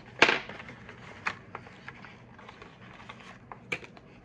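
Hands working a part loose from the doorbell's box packaging: a short burst of scraping noise about a quarter second in as it comes free, then scattered light clicks and taps.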